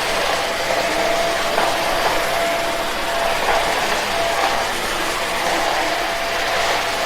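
Iwoly V600 corded stick vacuum's 500 W motor running at full speed: a steady whine over a rush of air.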